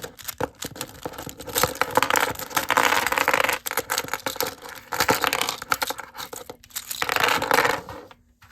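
Plastic pieces of a Rubik's cube being prised off one by one to take the cube apart: a run of sharp clicks and scraping, with louder stretches of scraping about two, five and seven seconds in.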